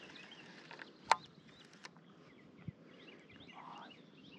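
Birds chirping and calling, many short repeated chirps, over faint outdoor background noise. A single sharp click about a second in, and a fainter knock a little later.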